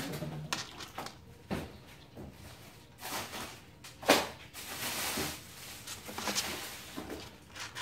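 A kitten's claws scratching and tapping on a plastic shelf as it paws at it and climbs in: scattered scrapes and knocks, the loudest a sharp knock about four seconds in.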